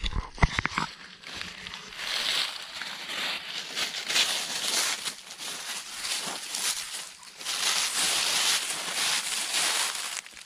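Dry fallen leaves crunching and rustling underfoot as goats and a walker tread through a thick leaf litter, coming in uneven surges. A few sharp knocks in about the first second.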